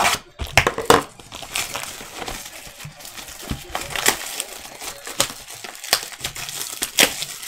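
Clear plastic shrink wrap being torn off a trading-card box and crumpled in the hands: a dense run of crinkling and crackling, with sharper snaps about a second in and near the end.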